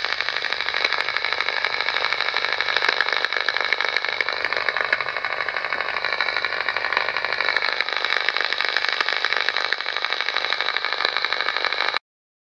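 Powerline (PLC) networking signal around 8 MHz made audible by a simple radio receiver: a dense, rapid rattling buzz with a few steady whistling tones through it. It cuts off abruptly near the end.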